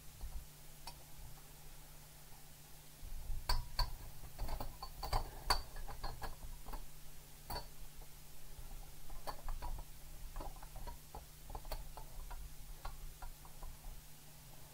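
Hard plastic model-kit parts clicking and knocking irregularly as they are handled and fitted together, starting about three seconds in and busiest soon after.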